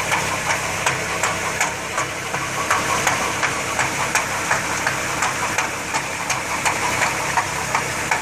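2011 Toyota Sienna's rear differential ticking rhythmically, about two or three sharp clicks a second, over the steady drone of the running drivetrain; the noise is traced to the differential case.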